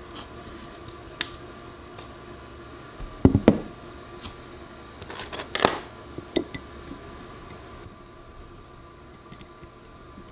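A few sharp clicks and knocks of small hard parts being handled, the loudest a double knock about a third of the way in, over a steady faint hum.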